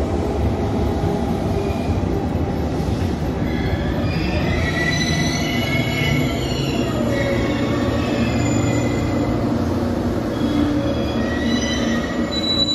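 JR Kyushu 813 series electric train pulling into the platform and braking to a stop: a steady rumble of wheels on rails, with high squealing as it slows from about four seconds in, and again shortly before the end.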